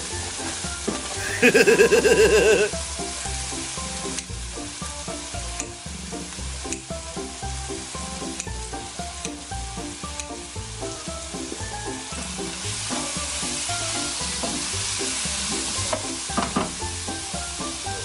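Thin-sliced pork belly and kimchi sizzling in a frying pan as they are stirred, with scattered clicks of the utensil against the pan; the sizzle grows louder near the end. About a second and a half in, a loud tone with a wavering pitch sounds for about a second over the frying.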